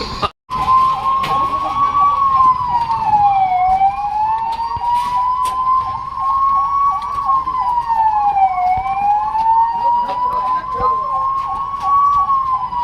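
Electronic emergency-vehicle sirens: a slow wail rising and falling about every five seconds, with a fast yelp of about four pitch rises a second running alongside it. The sound cuts out briefly just after the start.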